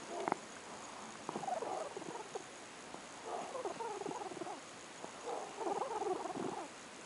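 A cat coughing in three bouts of about a second each, coming roughly two seconds apart.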